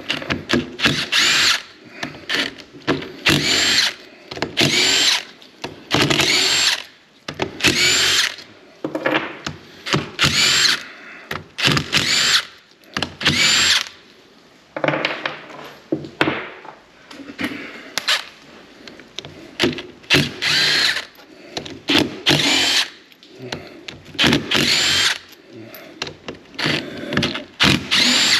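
Cordless power driver backing out the cylinder-head bolts of a York AC compressor. It comes in about a dozen short runs every second or two, each spinning up in pitch, with pauses between as it moves from bolt to bolt.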